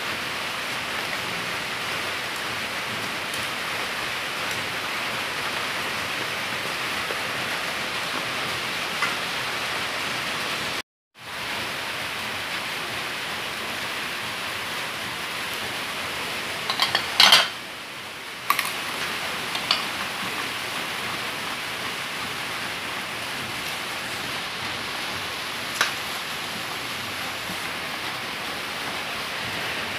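Steady hiss in the background, with a whisk or spoon clinking sharply against a metal mixing bowl, in a cluster a little past the middle and once more near the end. The sound cuts out for a moment about eleven seconds in.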